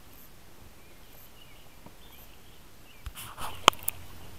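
Quiet outdoor lull, then about three seconds in a brief cluster of splashing and handling knocks with one sharp click as a small hooked fish is swung out of the water and grabbed.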